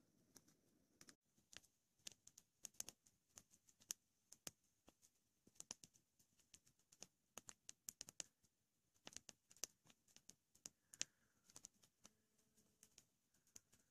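Wood campfire crackling faintly, with irregular sharp pops and snaps several times a second from a freshly stoked fire.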